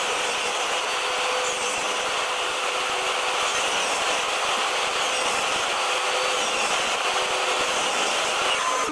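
Workshop power tool motor running steadily, a constant whine over a rush of air, cutting off suddenly at the very end.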